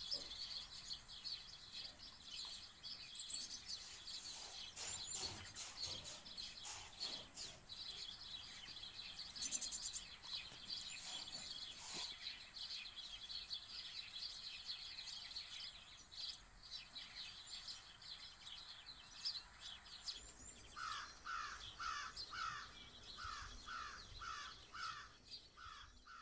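Small birds chirping steadily in the background; about twenty seconds in, a crow starts cawing, a run of short caws at about two a second.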